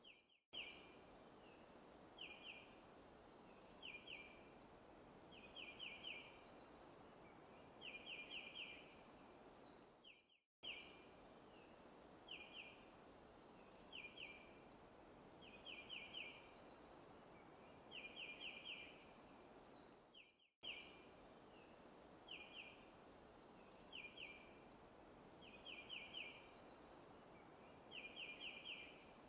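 Forest ambience of birds chirping: short bursts of one to four quick high chirps about every two seconds over a soft steady hiss. The recording loops, dropping briefly to silence about every ten seconds.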